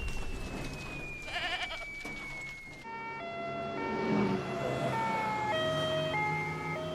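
A long, slowly falling whistle tone follows a blast, with a brief wavering cry about one and a half seconds in. From about three seconds, soundtrack music with held notes takes over.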